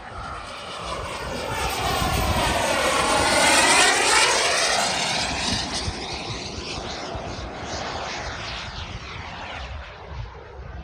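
Turbine-powered RC model jet (Albatros L-39 with a JetCat 180 turbine) making a flypast. The rushing turbine sound swells to its loudest about four seconds in as the jet passes, then fades away.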